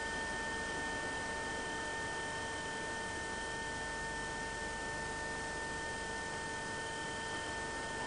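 Faint steady hiss with a constant electrical whine made of several steady high tones: the recording's own background noise, with no other sound.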